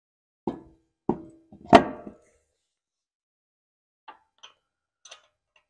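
Spare wheel and tire knocking against the hub and wheel studs as it is lifted into place: three knocks, the third the loudest and ringing briefly. From about four seconds in, a few light metallic clicks as lug nuts are threaded on by hand.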